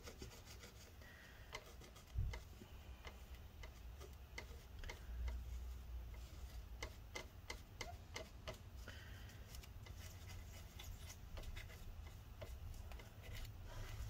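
Faint rubbing of a paper towel dampened with isopropyl alcohol, wiping old thermal paste off a laptop heatsink. Many irregular small clicks and ticks run through it, with a slightly louder knock about two seconds in.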